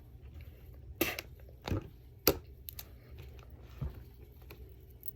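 Plastic packaging being worked open by hand: a handful of sharp crackles and clicks, a second or so apart, as a Mini Brands capsule ball is wrestled open.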